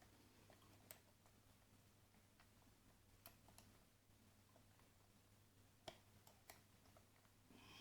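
Faint, scattered clicks of a lock pick and tension wrench working the pins of a custom-pinned CES euro cylinder, about five sharp ticks spaced irregularly over near silence.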